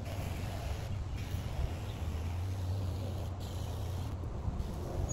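Battery-powered backpack sprayer running, its pump humming steadily while sealer sprays from the wand with a steady hiss.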